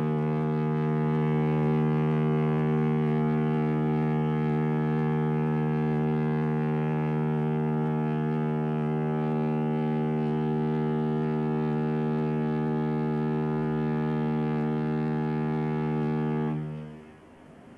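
Ship's horn sounding one long, steady, deep blast that dies away near the end, leaving a low rumble.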